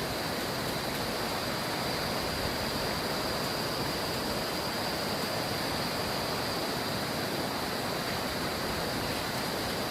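A stream rushing steadily, with a thin, steady high-pitched whine over the water.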